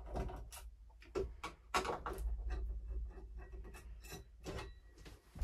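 Screwdriver turning out the fixing screws of an internal lever door handle: irregular small clicks and scrapes.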